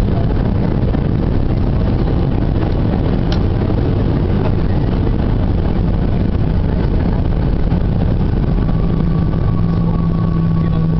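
Airliner cabin noise as the jet rolls along the runway after landing: a loud, steady rumble of engines and wheels heard through the cabin. About eight seconds in, a steady low hum and a higher steady tone join it.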